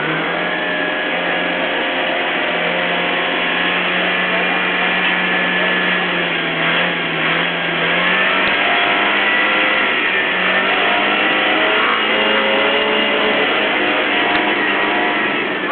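Motor of a floating restaurant raft running steadily as it cruises the river, its pitch sagging for a moment about seven seconds in before picking up again. Voices chatter faintly over it.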